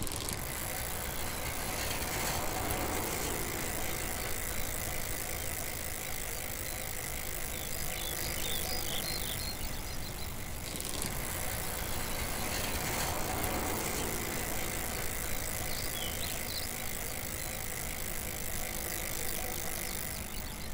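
Steady noise of a vehicle on the move, an even hiss and low drone with no clear beat, fading slightly near the end.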